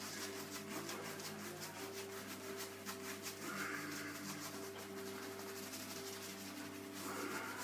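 Shaving brush swirling shaving-cream lather over a shaved scalp: a soft, rapid rubbing swish in quick repeated strokes.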